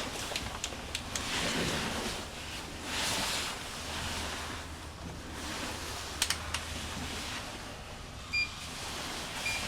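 Rustling and scraping handling noise with a few sharp clicks, then two short high electronic beeps near the end, from an insulation resistance tester.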